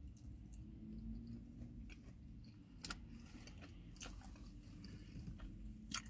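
A person chewing a mouthful of chicken wing, faint, with a few sharp mouth clicks, the clearest about halfway through and near the end.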